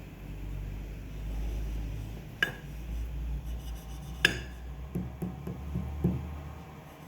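Small metal engine parts being handled: two sharp metallic clinks about two seconds apart, then a few softer knocks, over a low steady hum.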